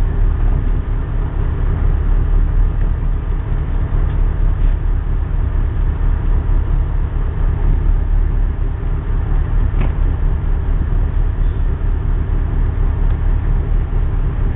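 A boat's engine running steadily at idle, a constant low drone.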